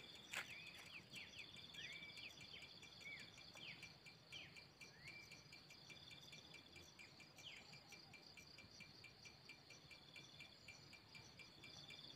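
Faint crickets chirping steadily in a high, continuous trill. A few short sliding calls break in through the first half. There is a single click about half a second in.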